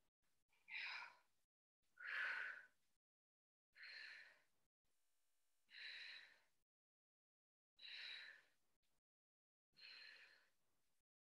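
A woman's heavy breaths under effort, six in all, about one every two seconds, each short and breathy. They come in time with the repetitions of a glute bridge with tricep extensions.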